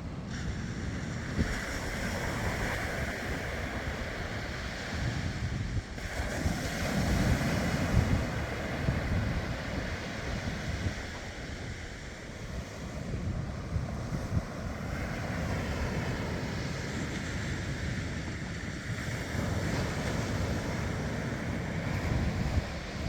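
Sea waves washing onto a beach, with wind buffeting the microphone as a low rumble. The surf swells louder about seven to eight seconds in.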